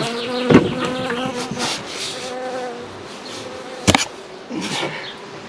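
A bee buzzing close to the microphone, its pitch wavering as it circles, weaker after about three seconds. A sharp knock comes about half a second in, and a louder one near four seconds.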